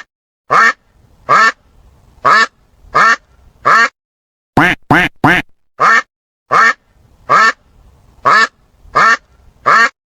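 A duck quacking in a steady series of short single quacks, a little more than one a second, with three quick quacks in a row near the middle.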